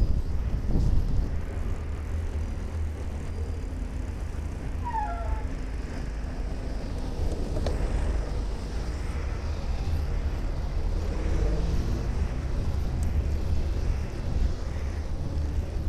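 Wind rumbling on the microphone of a bicycle-mounted camera while riding in city traffic, with buses and cars running alongside. A brief high chirp about five seconds in and a single click near eight seconds.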